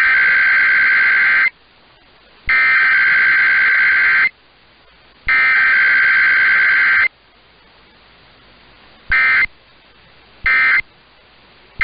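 Emergency Alert System SAME digital data bursts: three long two-tone header bursts about a second apart, then short end-of-message bursts in the last few seconds. No attention tone or spoken message comes between them.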